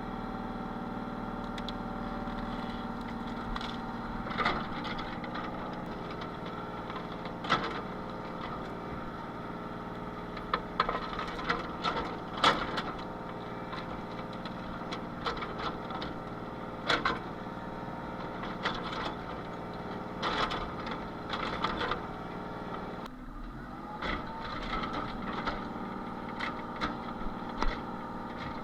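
Excavator engine running steadily, with irregular sharp knocks, clanks and cracks as the bucket works a tree stump loose and knocks dirt off it.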